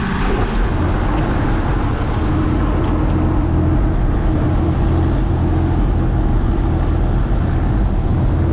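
Tour helicopter running steadily, its engine and rotor making a loud, even low drone.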